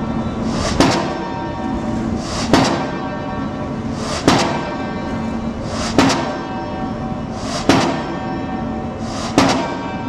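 Diesel pile hammer driving a pile: six heavy blows about 1.7 seconds apart, each with a short ring. A steady machinery hum runs underneath.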